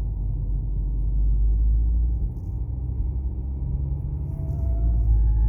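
BMW E90 making a steady low rumble, with a faint whine that slowly rises in pitch starting near the end; the owner does not know what the sound is.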